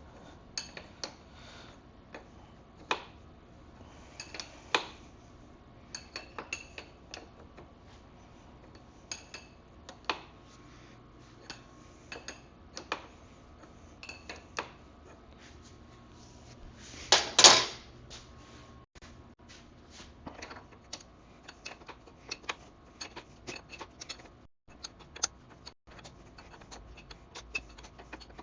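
Hand tools and metal parts clinking and clicking irregularly as the rear axle nut and chain adjusters of a dirt bike are worked loose, with one louder metal clatter about two-thirds of the way through.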